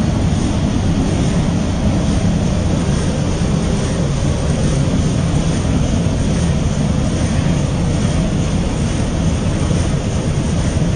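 Rice milling machine running, hulling paddy into rice: a loud, steady mechanical noise with a low hum and no breaks.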